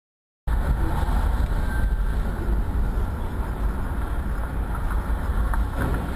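Dashcam recording from inside a moving car in traffic: a steady low rumble of engine and road noise that begins abruptly about half a second in, with a few faint knocks near the end.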